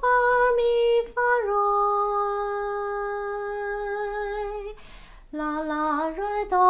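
A woman's unaccompanied singing voice working through a slow melody. After a short note she steps down to one long held note of about three seconds, takes an audible breath, then goes on with a run of shorter notes.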